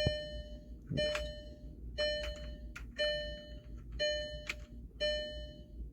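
Volkswagen Tiguan's warning chime ringing about once a second, with a few sharp clicks of the dashboard controls being pressed; no blower sound comes through, since the fresh-air blower is not running.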